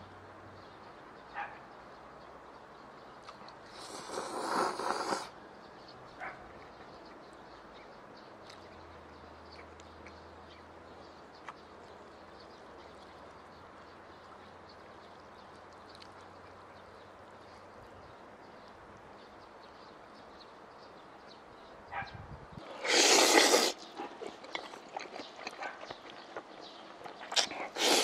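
A person slurping spicy cold chewy noodles: a slurp a few seconds in, a louder one near the end and a shorter one at the very end, with soft chewing after the loud one, over a steady faint hiss.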